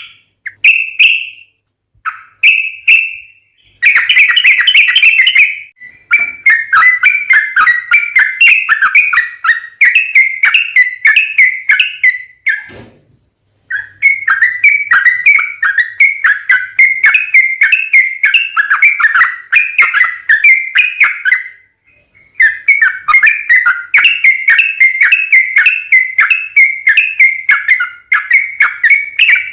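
Yellow-vented bulbul (trucuk) singing long runs of fast, bubbling chattering notes, several a second. The phrases are broken by short pauses, the clearest just under halfway through and about three-quarters through.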